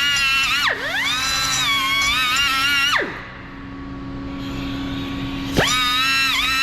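Handheld rotary power tool whining under load as it cleans the wheel hub face. Its pitch sags and recovers while it works; it winds down about three seconds in and spins back up a couple of seconds later.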